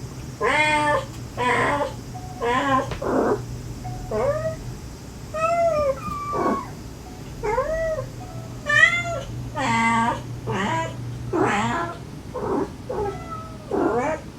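A mother cat and her kittens meowing back and forth, about fifteen short calls in quick succession, some sliding up and down in pitch: the mother's soft calling to her kittens and the kittens' answering meows. A faint steady low hum lies underneath.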